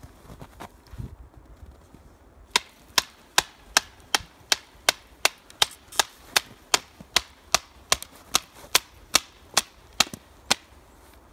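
Batoning with a JaktKit KNV2 knife: a wooden baton striking the knife's spine to drive it through wood. A few light knocks, then from about two and a half seconds in a steady run of sharp wooden cracks, between two and three a second.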